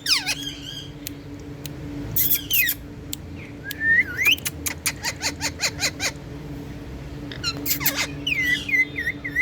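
Indian ringneck parakeets calling in short bursts of squeaky, pitch-bending chirps, with a quick run of clicks in the middle.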